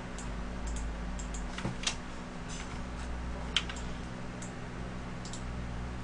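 Scattered, irregular clicks of a computer mouse and keyboard, the sharpest about two and three and a half seconds in, over a low steady electrical hum.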